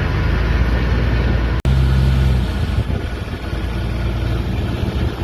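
Safari bus engine running with a steady low rumble, broken by a momentary gap about a second and a half in.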